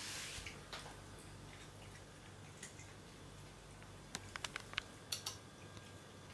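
A cat handling a piece of bacon on a tiled floor: a brief soft rustle at the start, then a quick run of small sharp clicks and taps about four seconds in.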